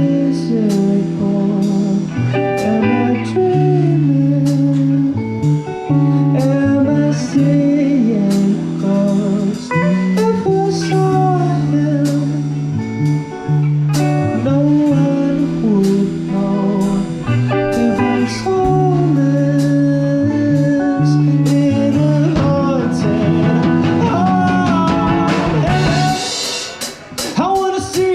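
Live band playing a blues-style rock song: guitar and a singing voice over drums, with a wash of cymbals near the end.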